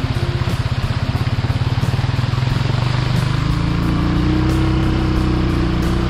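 An engine running with a rapid, steady beat. Its pitch rises a little about three seconds in.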